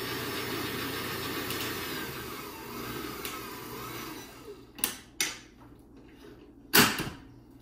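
Electric stand mixer running steadily, then fading out a little over halfway through. A few sharp knocks follow, the loudest near the end.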